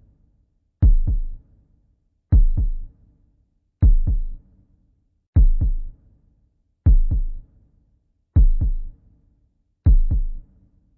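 Heartbeat sound effect: deep, slow double thumps (lub-dub) repeating evenly about every one and a half seconds, seven beats in all.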